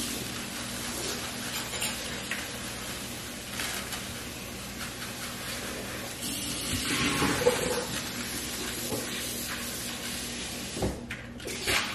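Rustling and crinkling as food is handled over a pie dish, loudest about seven seconds in, with a couple of light knocks near the end.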